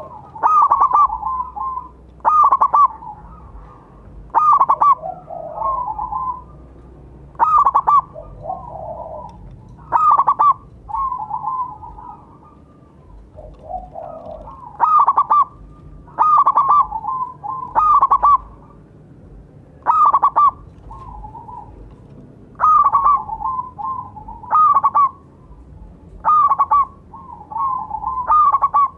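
Zebra dove (perkutut) cooing loudly: short phrases, each a quick run of cooing notes, repeated one to three seconds apart.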